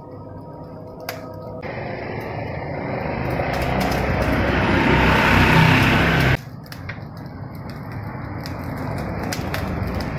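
Charcoal satay grill being fanned hard with a woven hand fan: a rushing whoosh of air over the coals with crackling, building louder for a few seconds, then dropping suddenly about six seconds in and going on more quietly.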